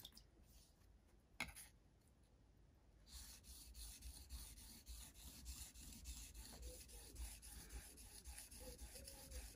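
Faint, quick, even strokes of a Mora Companion knife's steel blade drawn across a wet 6000-grit whetstone, starting about three seconds in after one light knock. These are the finishing strokes working the tip toward a mirror polish.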